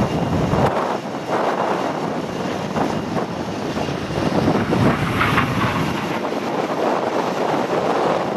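CAC Sabre jet's Rolls-Royce Avon turbojet running as the jet flies overhead, a steady, broad rush of jet noise. Wind buffets the microphone at the start.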